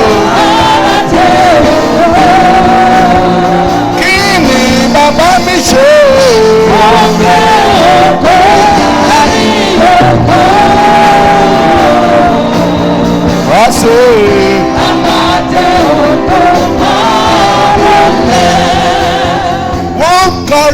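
Church praise music: a voice singing a gliding melody over steady backing instruments and a regular beat.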